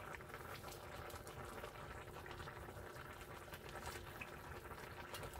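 Pot of fish and cabbage in broth simmering on an electric stove: a faint, steady bubbling hiss.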